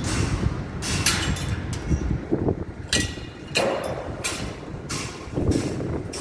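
Construction site noise: a steady low machinery rumble with irregular sharp metallic knocks and bangs, about one a second.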